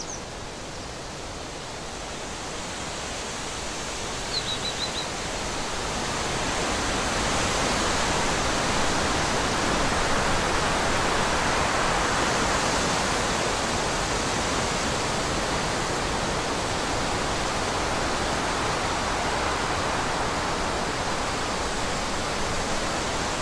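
Steady rushing noise that swells over the first several seconds and then holds even, with a few short high bird chirps near the start and about four and a half seconds in.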